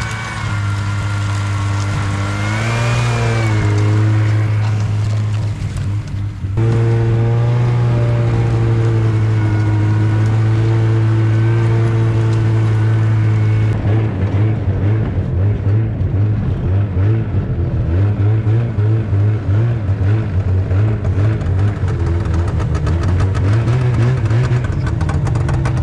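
Snowmobile engine running steadily while riding along a trail, its pitch rising and falling briefly about three seconds in. In the second half the engine sound turns uneven and choppy.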